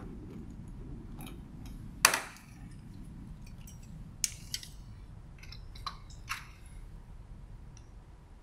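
Clicks and knocks of plastic lab gear being handled as a micropipette is picked up, set and fitted for use: one sharp click about two seconds in, then several lighter clicks. A steady low hum runs underneath.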